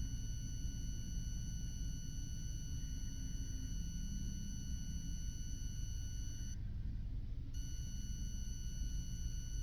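Steady high-pitched electronic whine with overtones, which cuts out for about a second past the middle and then returns, over a low steady room rumble.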